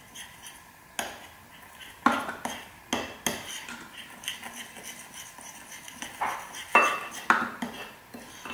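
Metal spoon scraping and clinking irregularly against a ceramic bowl while stirring a damp cocoa-powder mix, with a few sharper clinks about one, two and three seconds in and again near seven seconds.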